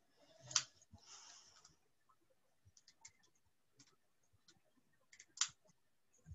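Faint scattered clicks and light taps, with two sharper clicks about half a second in and near the end, and a brief rustle about a second in.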